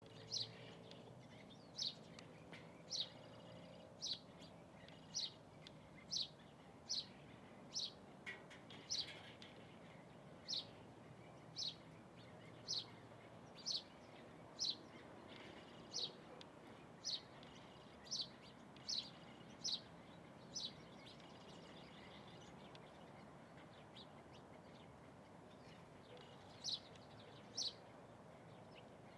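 A bird's short, high chirp repeated about once a second. The calls stop for several seconds about two-thirds of the way through, then start again.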